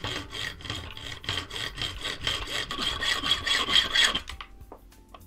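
A small framed hand saw cutting through a threaded metal hex standoff clamped in a vise: quick back-and-forth rasping strokes that stop about four seconds in.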